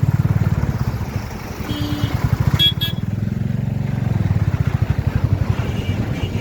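Royal Enfield Bullet motorcycle's single-cylinder engine running under way, its exhaust a rapid, steady low pulsing. A short high-pitched tone sounds about two and a half seconds in.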